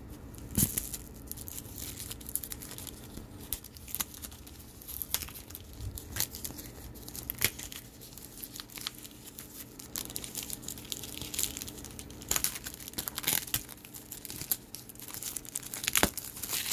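The stiff, 14-year-old plastic blister pack of a sealed CD being peeled and pried open by hand: irregular crinkling and crackling with a few sharper snaps.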